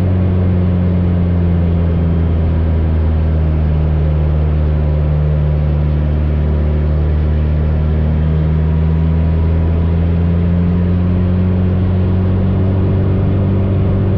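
AcroSport 2 biplane's 180-horsepower engine and propeller droning steadily through an aerobatic manoeuvre, the pitch sagging a little midway and picking up again near the end.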